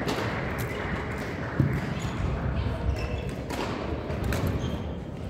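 Badminton hall ambience: a steady murmur of background voices with scattered sharp clicks and thuds from play on the courts, the loudest thud about one and a half seconds in.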